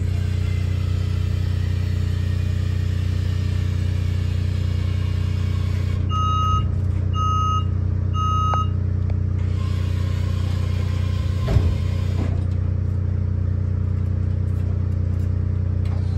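Scissor lift lowering its platform with a hiss, over a steady low engine hum. About halfway down it gives three short beeps a second apart, its descent alarm, and a knock follows a few seconds later.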